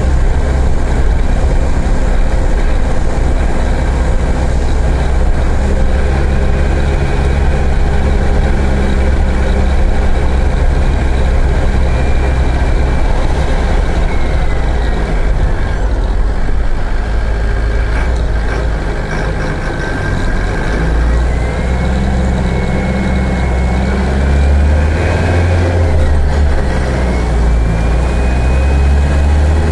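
Mercedes-Benz OF-1418 bus diesel engine running under load, heard loud and close, with rising whines as it accelerates. It eases off briefly about two-thirds of the way through, then pulls again.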